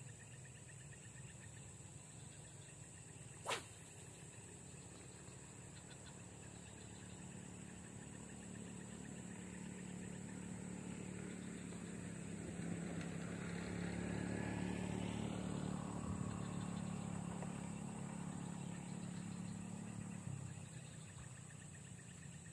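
A motor vehicle's engine is heard in the distance: it slowly grows louder, peaks past the middle and fades away again as the vehicle passes by. A single sharp click sounds about three and a half seconds in.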